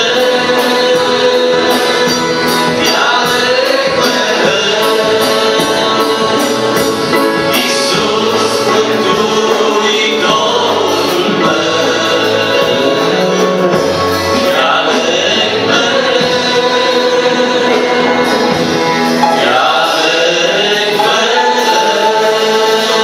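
Male vocal group singing a Christian song in close harmony, accompanied by accordion and drums keeping a steady beat on the cymbals.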